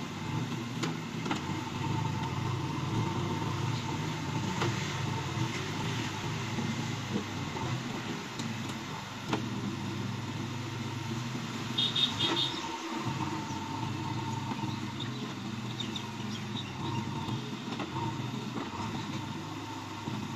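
JCB 3DX Eco backhoe loader's diesel engine running steadily while its backhoe arm digs and dumps mud, with a faint steady whine and occasional light knocks. A brief high chirp about twelve seconds in.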